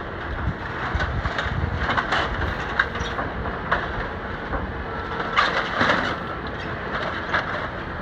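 Demolition work in building rubble: a steady machine rumble under repeated metallic clanks and crunches of debris being crushed, the loudest cluster about five and a half to six seconds in.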